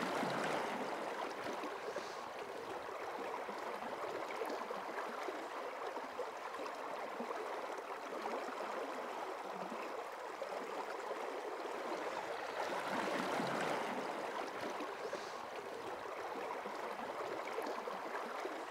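River water flowing, a steady rushing that swells slightly about a second in and again around thirteen seconds.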